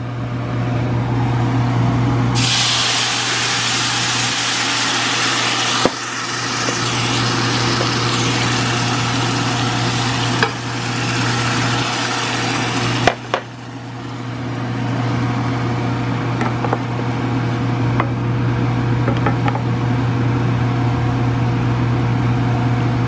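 Blended tomato sauce hitting a pan of hot toasted rice: a loud hiss and sizzle that starts suddenly a couple of seconds in, easing after about ten seconds into a quieter steady simmer, with a few sharp clinks against the pan.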